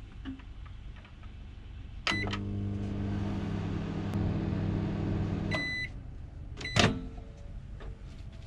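Twinbird microwave oven reheating food: it beeps about two seconds in, hums steadily for about three and a half seconds, then beeps as it stops. About a second later comes a sharp click, the loudest sound, as the door is released.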